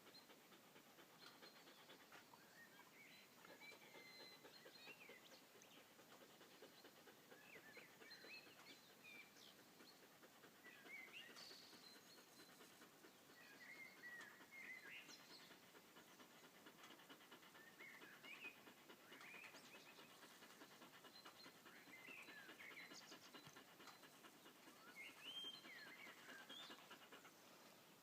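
Faint birdsong: many short chirps and twitters from small birds, scattered all through, over a quiet outdoor hush.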